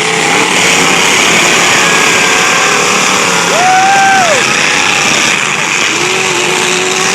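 Demolition derby cars' engines running together in a loud, continuous din, with one engine revving up and back down about halfway through.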